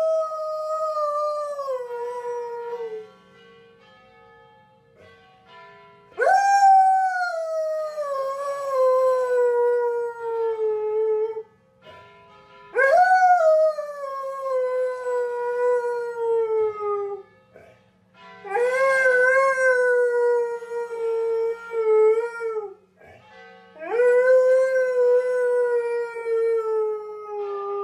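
A husky howling, one long howl after another, five in all. Each starts with a quick upward swoop, then slides slowly down in pitch over four to five seconds, with short pauses between.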